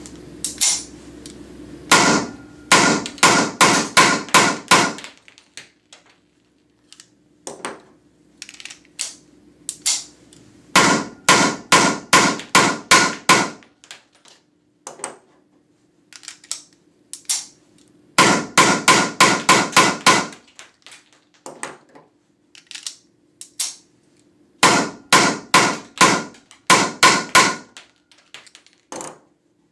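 Weihrauch HW94 blank pistol firing Umarex PTS 9 mm P.A.K. blank cartridges in four rapid strings of about eight shots each, into a plastic-wrapped catch box. Lighter clicks and knocks fill the gaps between strings.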